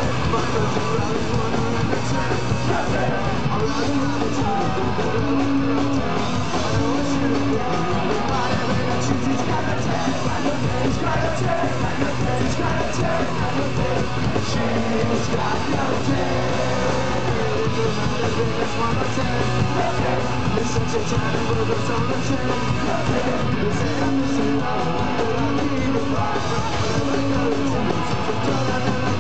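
Punk rock band playing live at full volume: electric guitar, bass guitar and drums, with sung vocals.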